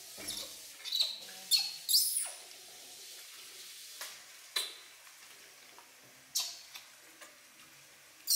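Infant macaques giving short, high-pitched squeaks and cries several times, with light splashing of water in a plastic basin.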